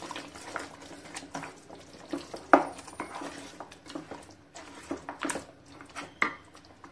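Spatula stirring mutton pieces in a thick gravy in a pan, with irregular scraping and knocks against the pan, the loudest about two and a half seconds in.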